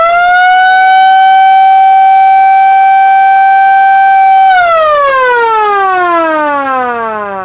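Mini siren sounding loud: it winds up to a steady single-pitched wail about a second in, holds it, then winds down about four and a half seconds in, the pitch falling steadily as it fades.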